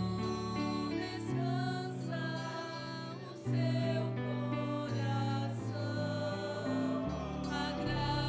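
A mixed church vocal group of men and women singing a Brazilian gospel song together over instrumental accompaniment, with low held notes that change every few seconds beneath the voices.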